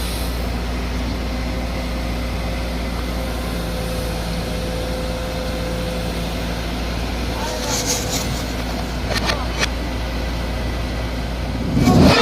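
Heavy diesel engine running steadily, with a few sharp clanks in the second half and a heavier thump near the end.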